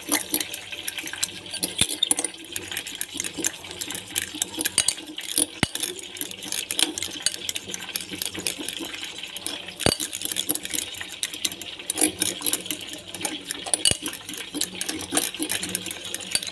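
Metal spoon beating mayonnaise in a glass bowl: a quick, continuous run of clinks and scrapes as the spoon strikes and drags against the glass.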